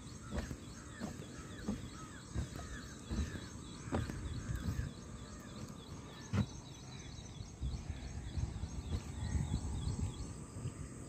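Small birds chirping and calling over a steady outdoor hiss, with curved whistled notes in the first few seconds. A few dull thumps cut in, the loudest about four seconds in and again a couple of seconds later.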